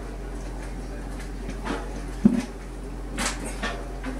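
A new metal drum spider being pressed by hand onto a stainless-steel washing-machine drum: short rubbing and handling knocks of metal on metal, with one sharp snap a little over two seconds in as an arm clips into its screw-hole recess on the drum.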